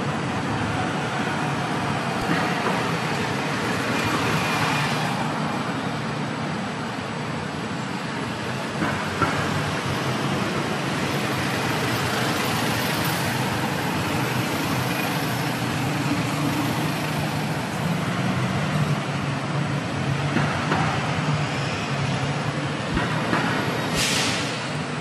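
Steady road traffic: the engines of passing vehicles running in a continuous roar, with a short sharp hiss near the end.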